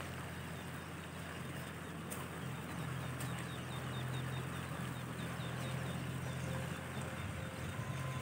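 Outdoor ambience: a steady low hum throughout, with a quick series of faint, high bird chirps a few seconds in.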